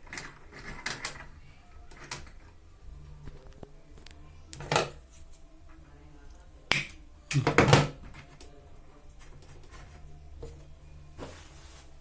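Hand work on washing machine timer wiring at close range: scattered clicks, light knocks and rustles, with the loudest burst of knocks about two thirds of the way in.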